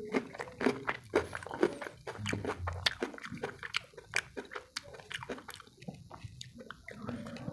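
Close-miked mouth sounds of eating: chewing a mouthful of rice and dal, with crisp crunches and wet clicks from biting a raw green chilli. Fingers squish rice and dal together on the plate.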